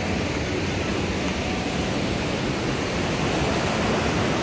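Mountain stream cascading over boulders: a steady rush of white water, growing a little louder near the end.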